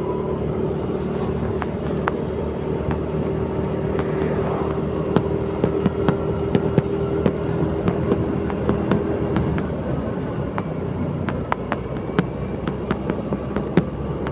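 Motor scooter engine running steadily while riding, a humming drone that fades away about ten seconds in, with frequent irregular clicks and rattles over it.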